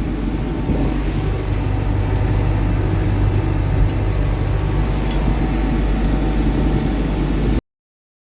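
Tractor engine running steadily with a low, even drone, cutting off abruptly near the end.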